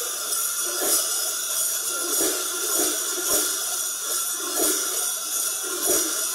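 Many metal cowbells worn in tiers on the backs of Mamutzones carnival dancers, clanking and jangling together in repeated surges about once a second as the wearers move. The rattle of the bells is meant to keep evil spirits away.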